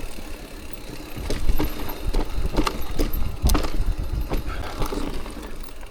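Mountain bike clattering and rattling over rough trail, with irregular sharp knocks over a steady low rumble.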